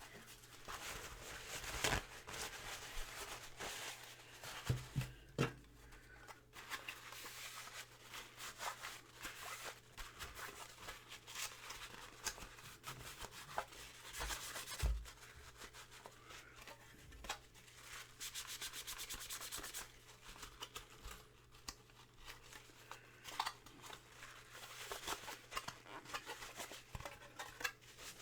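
Parts of a cassette tape deck being scrubbed clean by hand: irregular rubbing strokes with a few knocks, and a quick run of fast, even strokes about two-thirds of the way through.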